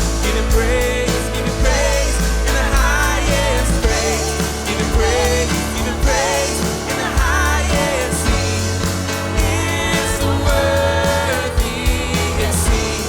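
Live contemporary worship band playing: drums, bass guitar and piano under sung vocals with vibrato.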